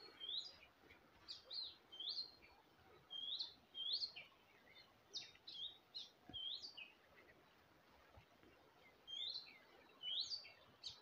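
Birds chirping: short, high notes that sweep up and down, coming in quick runs, with a lull about seven to nine seconds in.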